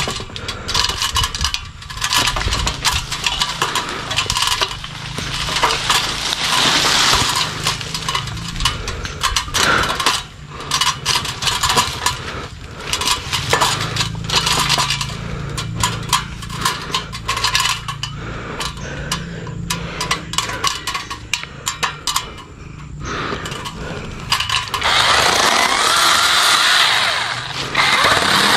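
Mini cordless electric chainsaw cutting cempedak branches: a dense run of crackles and snaps of wood. For the last few seconds the saw runs steadily and louder.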